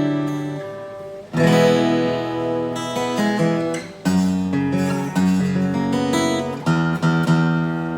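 Cowboy GWC 240 NAS acoustic-electric guitar, fitted with new strings, nut and saddle, being strummed with a pick. Chords are struck and left to ring and fade, moving to a new chord every second or two.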